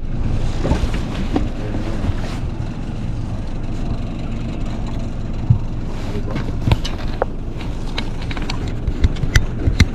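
Outboard motor idling steadily, with a few sharp clicks and knocks in the second half.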